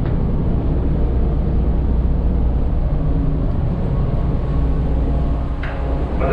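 Steady low engine rumble of a car ferry, heard on board.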